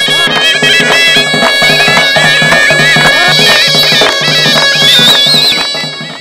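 Loud Caucasian dance music on zurna and drum: a shrill reedy melody wavers over a steady held drone, driven by a fast, even drum beat. It fades out near the end.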